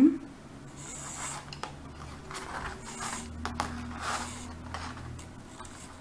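Nylon paracord being pulled through a plastic side-release buckle: soft rubbing and scraping of the cord, with a few light clicks.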